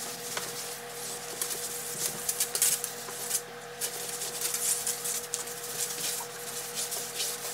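A cloth wiping a kitchen countertop: irregular rubbing swishes with a few light knocks.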